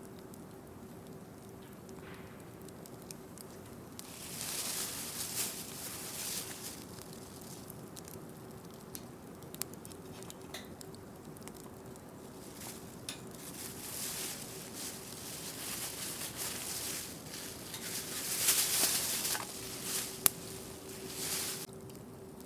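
Wood campfire crackling, with scattered sharp pops and several swells of hissing that last a second or two, the loudest near the end. A faint steady hum runs underneath.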